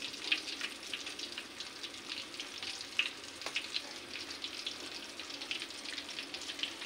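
Flour-coated chicken pieces deep-frying in hot oil in a karahi: a steady bubbling sizzle with scattered crackles and pops.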